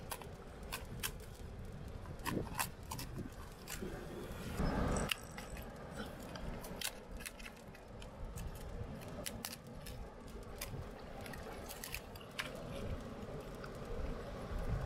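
Spiny lobster shell cracking and crunching as it is cut with a knife and broken apart by hand: a run of sharp clicks and snaps, with a brief louder rush of noise about five seconds in.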